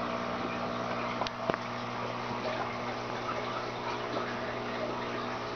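Small water pump of a hydroponic system running with a steady hum, water trickling over it. Two light clicks come about a second and a half in.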